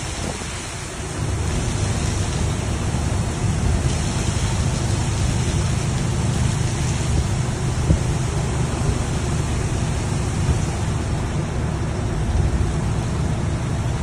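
Risense gantry bus washing machine running: a steady rushing noise over a low, even motor hum.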